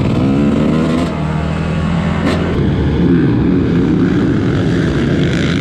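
Dirt bike engine running loud and steady, its pitch shifting as the revs change about two and a half seconds in.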